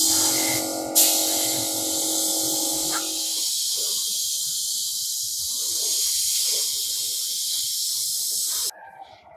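A steady high hiss that cuts off suddenly near the end. Under it, in the first three seconds or so, runs a steady machine hum with a fixed tone, with a single knock about a second in.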